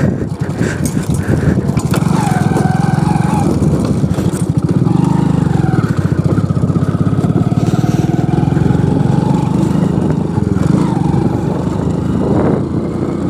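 Hero Splendor motorcycle's single-cylinder four-stroke engine running steadily under way over rough ground.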